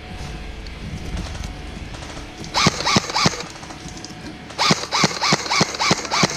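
Airsoft gun firing in quick shots: three about two and a half seconds in, then a string of six more near the end, roughly three a second.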